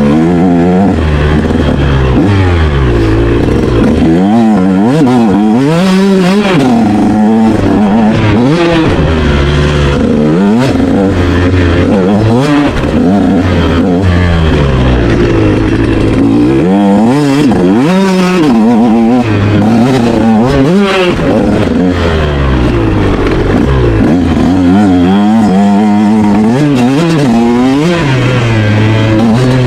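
Motorcycle engine ridden hard, its pitch climbing and dropping again and again as the throttle is opened and closed through the gears.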